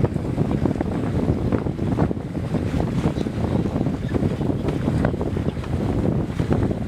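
Wind buffeting the microphone on a sailboat under way, a steady gusty rush.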